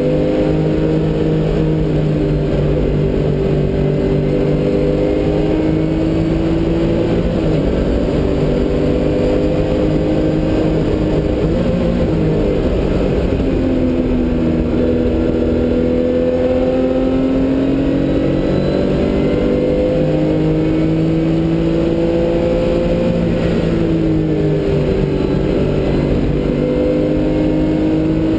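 Porsche race car's engine heard from inside the cabin under hard acceleration. Its pitch climbs through each gear and drops sharply at the upshifts. Around the middle it falls away under braking into a corner, then climbs again as the car pulls out.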